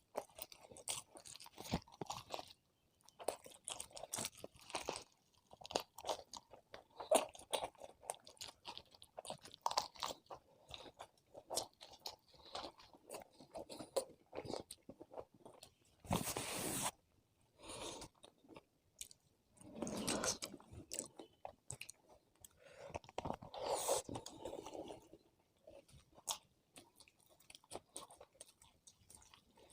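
Close-miked chewing and crunching of food, with many small clicks and several longer, louder stretches about 16, 20 and 24 seconds in.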